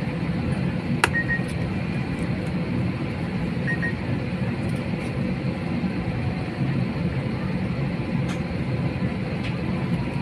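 Steady low rumble of an airliner cabin with the engines running as the plane gets under way, with a sharp click about a second in.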